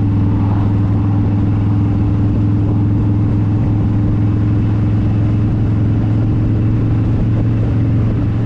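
Motorcycle engine running at a steady cruising speed while riding: a loud, even drone with a constant low hum, picked up by a chin-mounted helmet camera.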